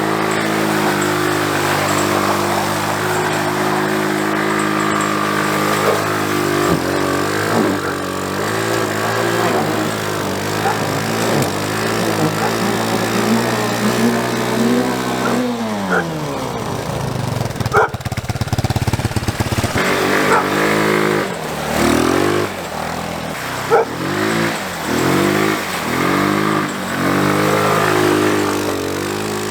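Small vehicle engine running after being started: it idles steadily for about fifteen seconds, drops in pitch, then is revved in a series of short throttle blips.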